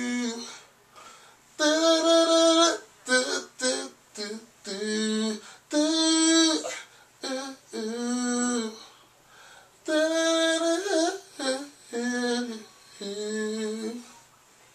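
A man's voice singing a wordless melody without accompaniment, in a string of held notes of about a second each separated by short breaths, like a vocalist humming out a melody line at the microphone.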